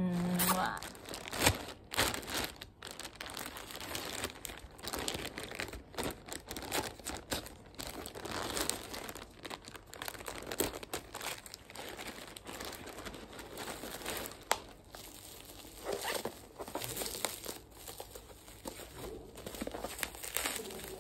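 Plastic courier bag crinkling and rustling as it is cut open with scissors and pulled apart, then bubble wrap crinkling as the wrapped box is handled. A dense, irregular crackle with a few sharper clicks.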